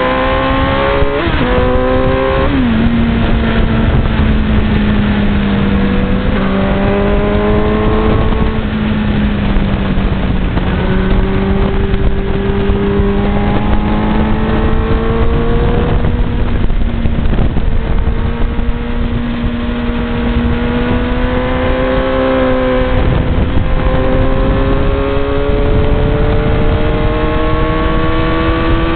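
Suzuki GSX-R1000 inline-four engine pulling at high road speed, heard from the rider's seat with heavy wind rush over it. The engine note climbs slowly and drops sharply a couple of times in the first few seconds and again about three-quarters of the way through, as the rider shifts gear.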